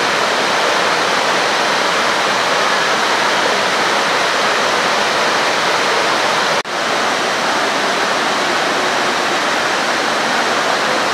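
Flash-flooded gully stream pouring down steeply over boulders and rubble: a loud, steady rush of water, dipping for a moment about two-thirds of the way through.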